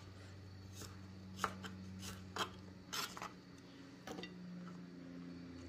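Kitchen knife chopping asparagus spears on a wooden cutting board: about six separate short chops, irregularly spaced, each stroke cutting through a stalk and knocking the board. A steady low hum runs underneath.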